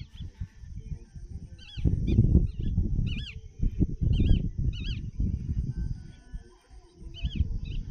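A bird calling in short groups of ringing, rise-and-fall notes, about once a second and again near the end, over a loud, uneven low rumble.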